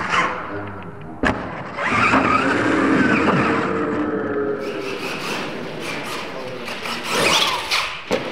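Radio-controlled scale monster trucks' motors whining, the pitch rising and falling as they rev up and back off. There is a single sharp crack about a second in.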